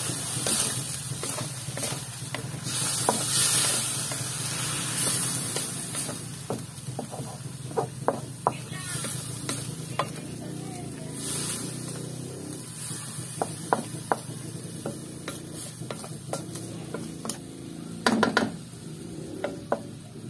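Wooden spatula stirring and scraping sliced fish cake and vegetables around a metal wok, with a sizzle from the hot pan and a cup of water just poured in. The sizzle is strongest in the first few seconds, and the spatula makes short knocks against the wok throughout, with a loud clatter near the end.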